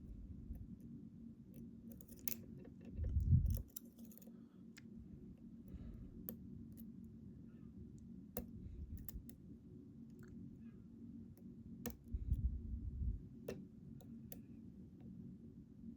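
Small metallic clicks and ticks from a lock cylinder and picking tools being handled as the lock is reset, with two dull low thumps of handling about three and twelve seconds in.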